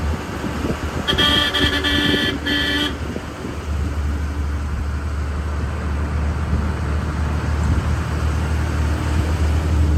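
Vehicle horn honking about a second in: one blast, then a brief second toot. It is followed by the steady low rumble of a vehicle engine on the move.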